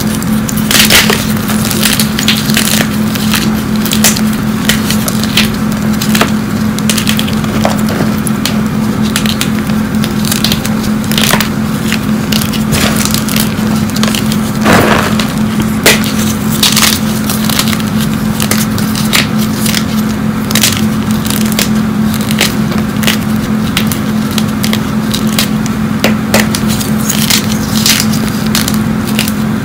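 Hard blocks of gym chalk crushed and crumbled by hand, a steady run of dry crackles and snaps as chunks break apart, over a steady low hum.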